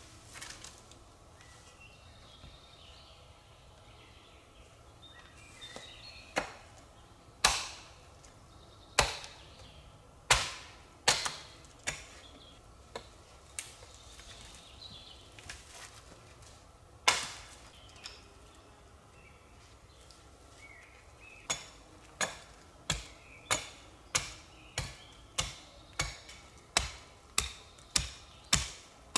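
Sharp hatchet blows on wood: scattered single strokes at first, then a steady run of about one and a half strikes a second through the last third. Faint bird calls in the forest early on.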